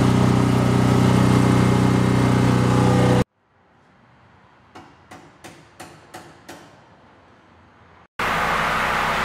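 An engine running steadily, a constant drone that stops abruptly about three seconds in. A few seconds of quiet follow with about six soft ticks, then a steady, noisier hum starts suddenly near the end.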